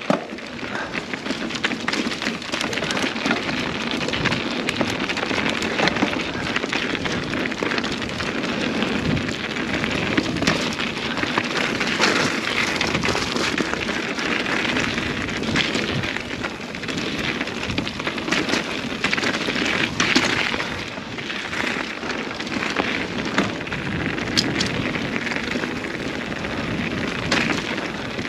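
Nukeproof Mega 275 mountain bike ridden over a rough gravel trail: a steady crackle of tyres on loose stones, with many small clicks and rattles.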